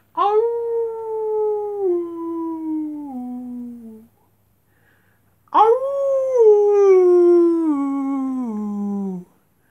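Two long howls, one after the other with a short silence between. Each starts with a quick rise in pitch and then slides down in steps to a lower note.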